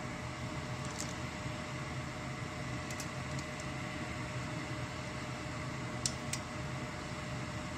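Steady fan-like appliance hum with a few light clicks; two sharper clicks come close together about six seconds in.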